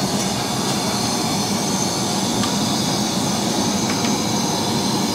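Gas burners running at high flame under steel karahi pans: a steady rushing noise, with a few faint clicks.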